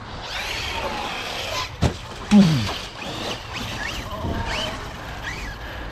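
Electric RC monster trucks running at a bash. A hiss in the first second and a half, a sharp knock about two seconds in, then short rising motor whines as the throttle is worked.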